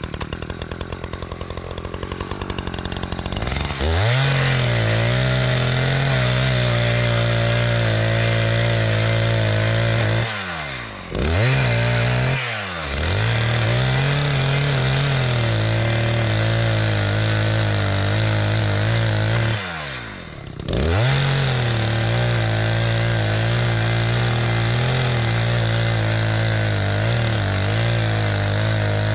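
Chainsaw running at low speed, then revved to full throttle about three and a half seconds in and cutting through dry ponderosa pine logs, its pitch sagging and recovering under load. The engine drops off twice, about a third of the way in and around two thirds, then revs back up into the next cut.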